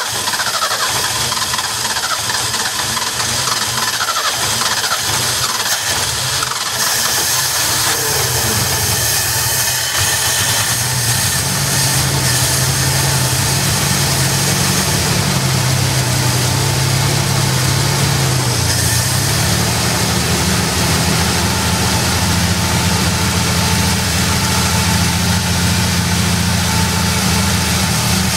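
Ford 300 cubic-inch inline-six fires up on a newly installed carburetor and runs steadily. Its idle speed rises about eleven seconds in and settles back lower near nineteen seconds as the carburetor is adjusted by hand.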